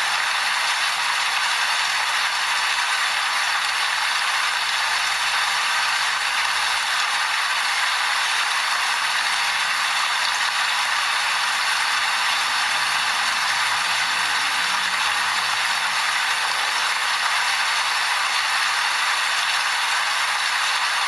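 Steady rain, an even hiss that holds the same level throughout.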